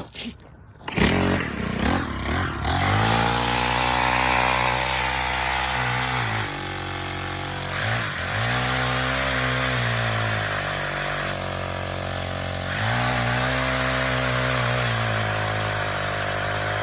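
Gas chainsaw starting up about a second in, then running at high revs in three long stretches, dropping back to lower revs twice in between.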